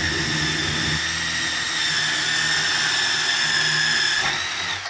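Electric drill running at a steady speed, boring the hole for a cabinet knob through a bifold door, with a steady high whine. It cuts off suddenly at the very end.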